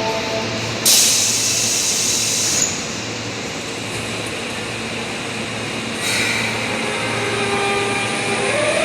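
Osaka Metro Tanimachi Line 22 series subway car: the last steady tones of its door chime at the very start, then about a second in a loud hiss of air lasting under two seconds. About six seconds in, the inverter-driven traction motors start up, their whine rising in pitch as the train pulls away.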